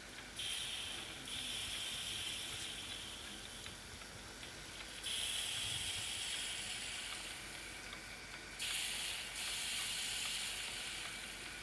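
Steam hissing from a PM Research model steam engine plant running slowly. The hiss is steady but jumps louder and drops back suddenly several times.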